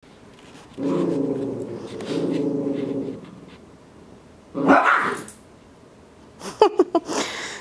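Small dogs tugging over a toy: a steady low growl for a couple of seconds, then one bark, then a few short high yips near the end.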